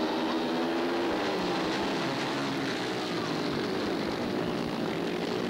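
Engines of several racing sidecar outfits running hard together as the pack takes a bend, a dense mix of engine notes with pitches rising and falling as the riders work the throttles.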